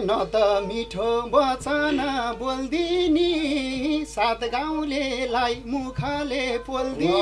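A man singing a Nepali dohori folk line in a high, wavering voice, largely unaccompanied, the instruments dropping out under the verse.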